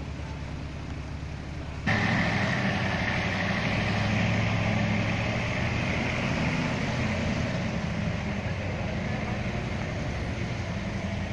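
Dump truck's diesel engine running steadily as the truck drives slowly over soft, rutted dirt. The engine sound gets suddenly louder and harsher about two seconds in, then holds steady.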